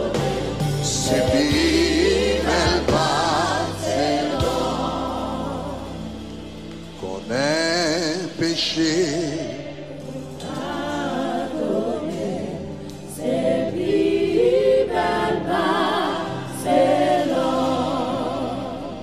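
Gospel worship song in Haitian Creole: sung phrases with wide vibrato, led by a man's voice with choir, over sustained keyboard chords.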